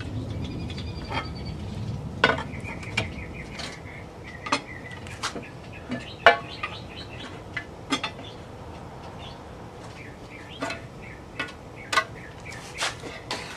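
Irregular metallic clinks and knocks from a wrench on the bolts and from the aluminium inverter cover of a Nissan Leaf drive unit being worked loose and lifted off. Birds chirp in the background in the first few seconds.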